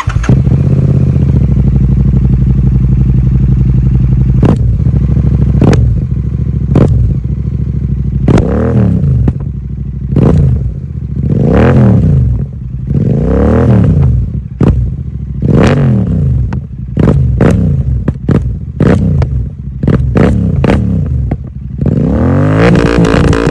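Royal Enfield Super Meteor 650's 648 cc parallel-twin engine, breathing through a Gursewak exhaust with no dB killer, starts up and idles. It is then blipped about ten times, a rise and fall in pitch each time, with loud crackles and pops from the exhaust as the revs drop.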